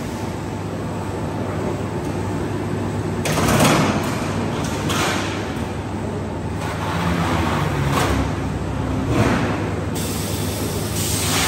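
Corrugated roofing-sheet roll-forming line running: a steady machine hum with several short, louder rushing surges spread through the span.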